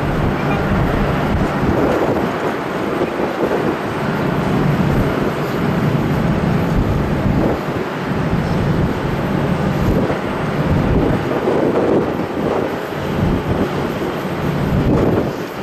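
Jet airliner engines running steadily close by, a constant loud noise, with wind buffeting the microphone in uneven gusts.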